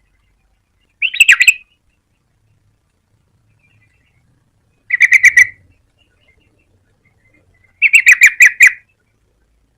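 Yellow-vented bulbul (trucukan) calling: three short bursts of fast, chattering notes, about a second in, about five seconds in, and a longer one about eight seconds in.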